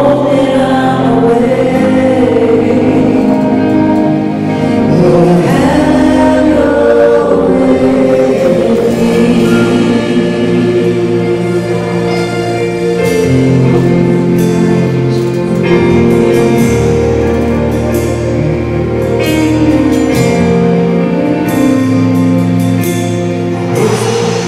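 Gospel music: a choir singing over instrumental accompaniment, with held bass notes changing every couple of seconds.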